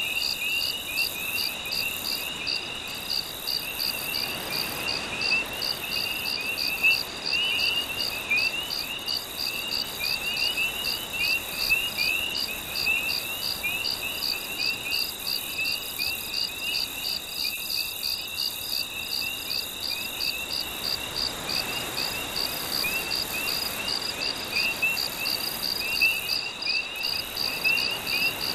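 Night chorus of calling insects and frogs: a steady run of short high pulses, two or three a second, over a dense stream of short, lower chirps. Beneath them, a faint wash of gentle waves swells about four seconds in and again about twenty seconds in.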